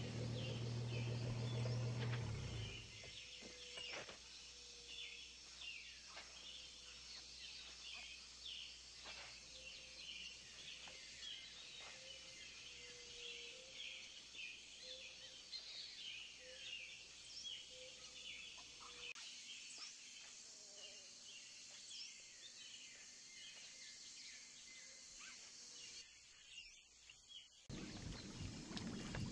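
Tropical forest ambience: many birds chirping and calling over a faint steady hiss, with one bird repeating a short note. A low rumble stops about two and a half seconds in, and water splashing starts near the end.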